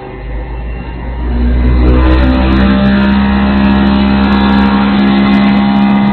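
Electric motor of a stainless-steel blizzard ice cream mixer speeding up as its speed knob is turned. The hum rises in pitch over the first two seconds or so, then runs steady at high speed.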